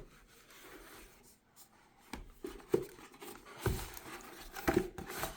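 Unboxing handling: faint rustling, then from about two seconds in, several sharp knocks and clacks of hard items being moved and set down.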